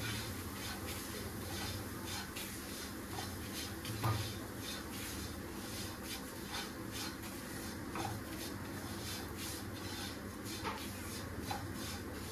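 Spatula stirring and scraping semolina as it roasts in a kadai: a steady run of soft scrapes a few times a second, with a few light knocks against the pan.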